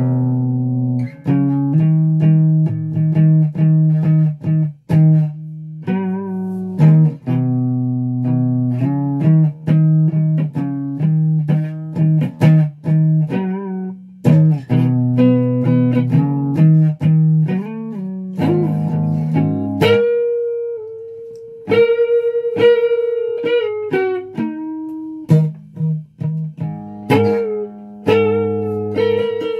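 Electric guitar being played: a low riff of quickly picked, repeated notes and chords, changing about twenty seconds in to a higher line of longer held single notes.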